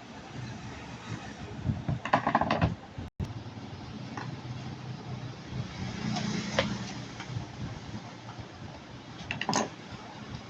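Parts of an electric drill being handled during repair: short bouts of clicking and clatter, about two seconds in, around six seconds in and once near the end, over a steady low hum.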